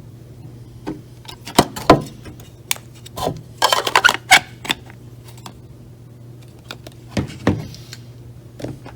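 Objects being handled on a desk: scattered clicks and knocks, with a short rustling cluster about four seconds in, over a faint steady hum.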